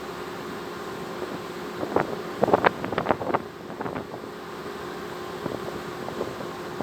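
Steady hum of a cargo ship's engine, with wind buffeting the microphone. A flurry of sharp knocks and clatter comes about two to four seconds in.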